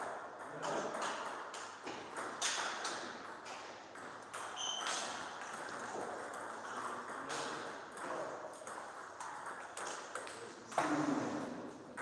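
Table tennis ball being struck back and forth in a rally: a string of sharp clicks as the ball hits the bats and the table. There is a short high squeak about five seconds in and a brief loud vocal cry near the end.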